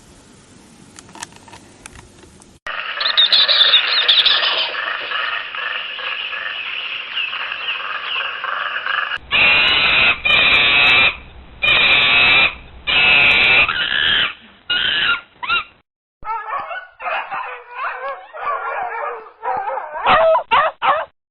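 Animal calls from several separate recordings, one after another. First a steady, pulsing chorus, then a run of loud calls about a second long with short gaps between them, then a quicker, warbling series of calls.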